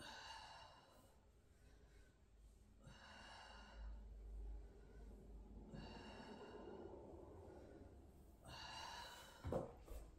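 A person's slow, deep breaths during a yoga stretch, four of them about three seconds apart. A short thump near the end as her body rolls back on the mat.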